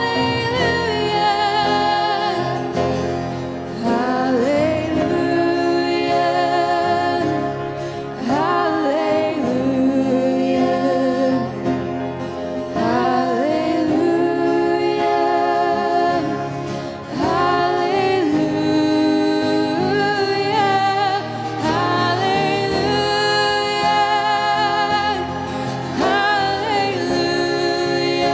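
Two women singing a slow Christmas worship song into microphones, their held notes wavering with vibrato in phrases a few seconds long. Two acoustic guitars accompany them.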